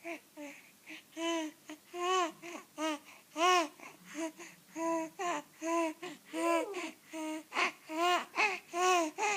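A 3.5-month-old baby cooing and babbling: a string of short, high-pitched coos, more than one a second, each rising and then falling in pitch.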